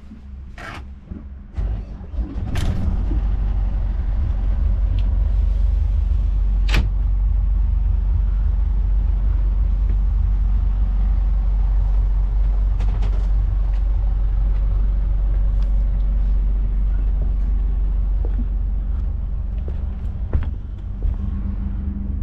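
A boat's engine starting at the turn of the ignition key, catching about two seconds in, then idling with a steady low rumble. A few sharp clicks sound near the start.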